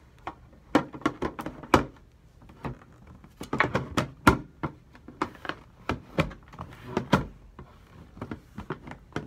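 Irregular knocks, thunks and clatters of things being handled and set down close by, about twenty in all, the loudest a sharp knock about four seconds in.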